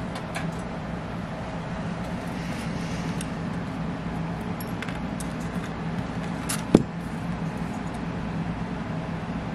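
Small metal parts and tools being handled on a workbench, with light clinks over a steady low hum. One sharp metallic click, the loudest sound, comes about two-thirds of the way in.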